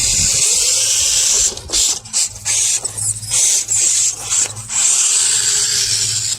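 Axial Capra RC crawler driving over rough ground, a loud scraping hiss of its running gear and tyres. It breaks into short stop-start bursts through the middle and then runs steadily again.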